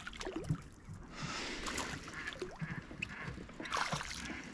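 Water splashing as a small hooked pike thrashes at the lake surface while it is reeled in toward the boat.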